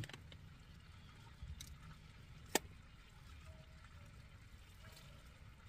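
Faint, soft handling sounds of a roast chicken being pulled apart by hand on a metal baking tray, with one sharp click about two and a half seconds in.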